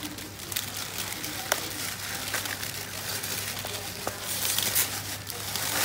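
Thin plastic bag crinkling and rustling as hands pull it off a whole raw chicken, in irregular crackles that get busier about four and a half seconds in.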